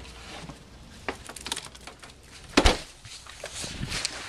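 Handling noise from a handheld camera being carried: rustling and scattered small clicks, with one loud knock a little past halfway through.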